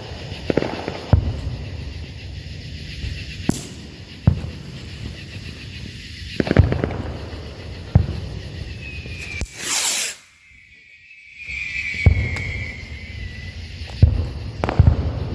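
Consumer fireworks going off: scattered sharp crackling pops, and about ten seconds in a loud hissing burst with a whistling tone that falls slightly over a few seconds.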